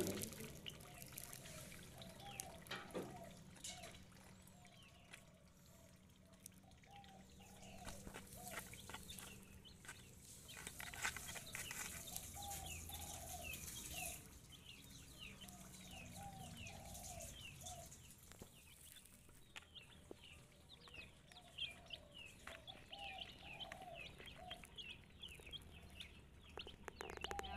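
Two-week-old broiler chicks calling faintly and repeatedly: short falling peeps mixed with softer, lower clucking calls.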